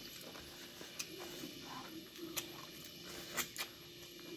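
Close-up mouth sounds of people eating rice and fish curry by hand: chewing, with a few sharp smacking clicks, the loudest pair about three and a half seconds in.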